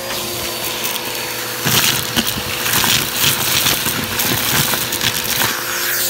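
Vacuum cleaner running, its bare hose end sucking small hard debris off cardboard: a steady motor hum with irregular clicking and rattling as pieces are pulled up the hose.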